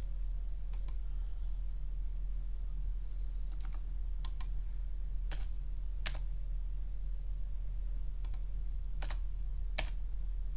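Scattered clicks of computer keys and mouse buttons, about nine single presses at irregular intervals, over a steady low hum.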